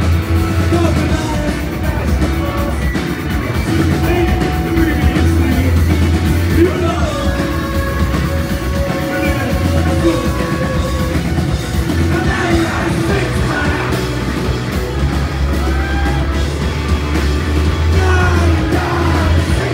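Live post-punk band playing loud through the PA: distorted electric guitars, bass and drums, with the singer singing and shouting into the microphone, his voice coming in most strongly in the second half.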